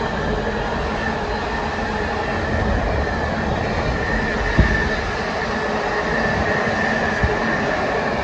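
Container wagons of a freight train rolling past at speed: a steady rumble of wheels on rail with a steady high tone over it. Two sharp knocks, about four and a half seconds in and near the end.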